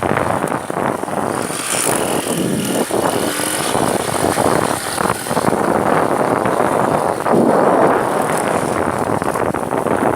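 Motorcycle engine running, mixed with wind rushing over the microphone.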